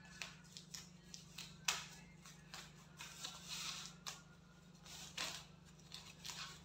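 Scissors snipping and thin plastic wrapping crinkling as the plastic is cut off a laser handpiece, in a run of irregular short snips and rustles over a steady low hum.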